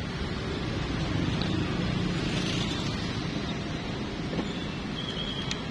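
Steady street traffic noise, an even low rumble with no rhythm, with a brief high tone about five seconds in.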